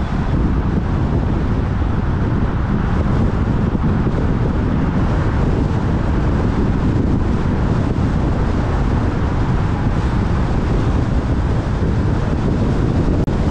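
Steady wind rumble on the microphone of a GoPro mounted on a moving Kia Cerato, over continuous tyre and road noise.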